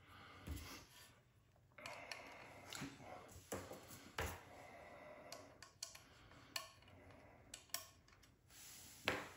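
Faint handling noise of rifle parts and small tools on a table: scattered light clicks and knocks with some rubbing.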